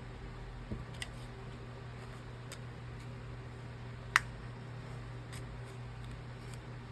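A few sharp, light clicks and taps of small repair tools working on a phone, the loudest about four seconds in, over a steady low hum.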